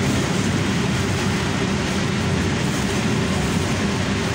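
Steady background machine noise: a constant low hum with a faint held tone, unchanging in level.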